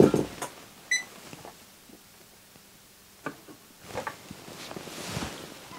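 A single short electronic beep about a second in, then a few faint clicks and a soft rustle of handling at the workbench.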